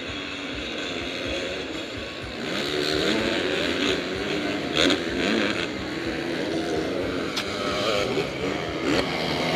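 Several motocross dirt bikes racing, their engines revving up and down with throttle and gear changes as they ride past on the track. The engines get louder about two and a half seconds in.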